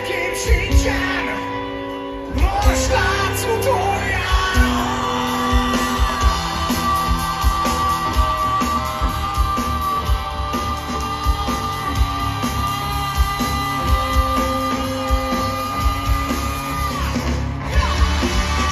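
Live rock band playing through a large outdoor PA, heard from far back in the crowd: singing over a steady beat and guitar. A long high note is held from about four seconds in until near the end.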